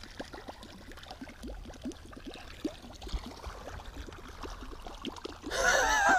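Light splashing and gurgling of water as a musky lure is swept through the water in a figure-eight beside the boat, with many small splashes. About five and a half seconds in comes a short wavering vocal sound, a man's groan.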